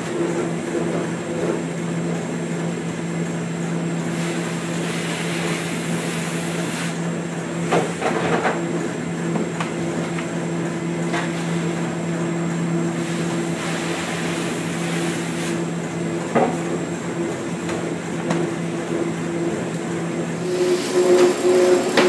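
Grape destemmer-crusher running with a steady motor hum, with plastic harvest lugs knocking against it and each other a few times. Near the end the hum changes to a higher, pulsing drone.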